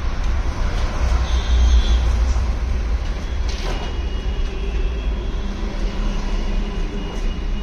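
A vehicle engine running with a steady low rumble, with one sharp knock about three and a half seconds in.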